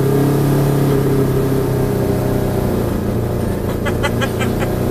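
Motorcycle engine swapped into a Smart car running steadily, heard from inside the small cabin. Laughter comes in over it near the end.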